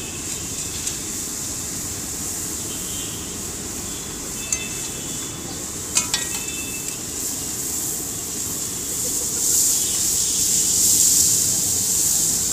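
A few sharp taps as eggs are cracked on a large iron tawa, then a hissing sizzle that swells about three-quarters of the way through as the eggs hit the hot griddle over the chopped onion and tomato. Steady street traffic noise runs underneath.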